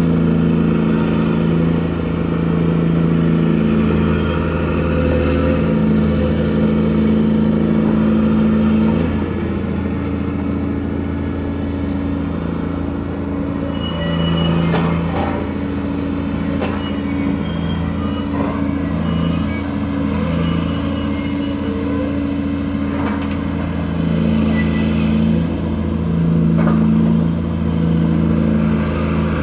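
Diesel engine of an aggregates carrier's grab crane running during cargo handling, its note shifting as the load changes, with scattered sharp metallic knocks.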